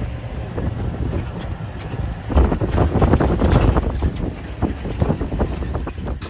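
Safari game-drive vehicle on the move: engine and tyre rumble with knocks and rattles, and wind buffeting the microphone. It gets louder about two seconds in.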